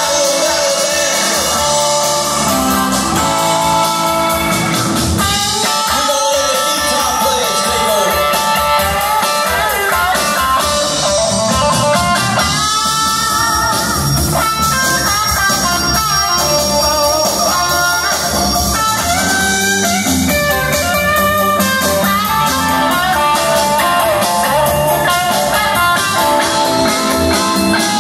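Live blues band playing an instrumental break: an electric guitar takes the lead with bent, gliding notes over bass guitar and a drum kit.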